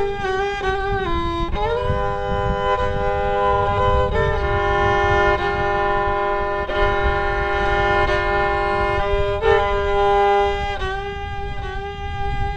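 Solo fiddle playing the slow closing phrases of a lament in long held notes, often two strings sounding at once, bowed to imitate bagpipes and slightly out of tune; it ends on a long held note.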